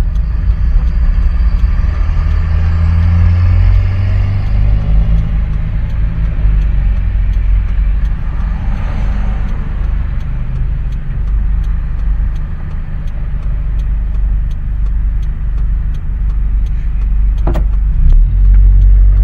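A vehicle's engine and road noise heard from inside the cab: a steady low rumble as it slows, then idles at a stop. There is a sharp click near the end.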